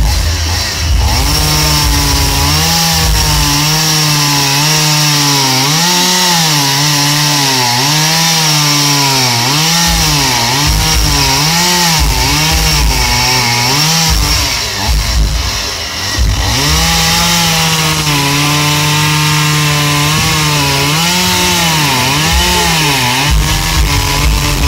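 Two-stroke petrol chainsaw carving into a wooden log, its engine pitch rising and falling again and again as the throttle is worked and the chain bites into the wood. About fifteen seconds in it briefly drops off, then runs at high revs again.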